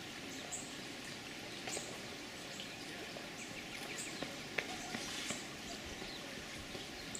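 Outdoor ambience: a steady background hiss with scattered short, high bird chirps and a few faint ticks.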